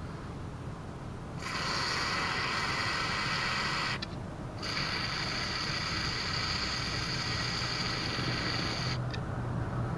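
Aerosol spray can sprayed at a mobility scooter's rear suspension hinge: two long, steady hisses, the first about two and a half seconds long, then a short pause and a second one of about four and a half seconds.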